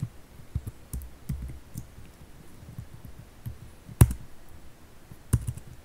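Computer keyboard typing: scattered key clicks, with two louder, sharper key strikes, one about four seconds in and one near the end.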